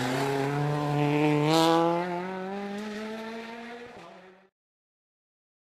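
Rally car engine pulling hard through the revs, its pitch rising steadily as the car accelerates away, with a brief hiss about one and a half seconds in. The sound fades and then cuts off suddenly a little after four seconds in.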